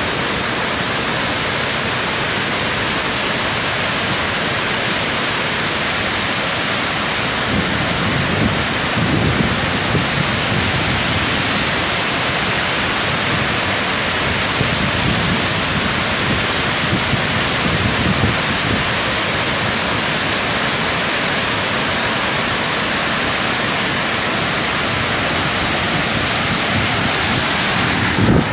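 Tarbela Dam's outlets discharging huge jets of water into clouds of spray: a loud, steady rush of water, swelling now and then with deeper rumbles.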